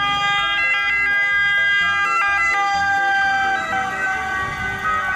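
Italian Red Cross ambulance's two-tone siren sounding as it drives past, its tones alternating between two pitches. The pitch slowly drops as the ambulance goes by.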